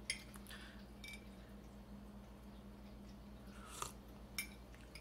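A metal spoon clinking lightly against a glass mug a few times, each clink with a brief ring. A short slurp as tea is sipped from the spoon just before four seconds in.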